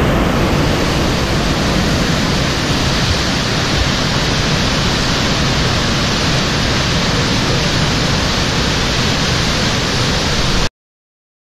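Steady loud rush of churning white water in an aircraft carrier's wake at speed. It cuts off suddenly about a second before the end.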